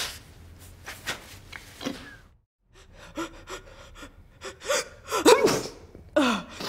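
A woman's sharp gasping in-breaths and strained voiced sounds, the build-up of an allergic sneeze fit. The loudest comes a little past the middle, with another falling one near the end.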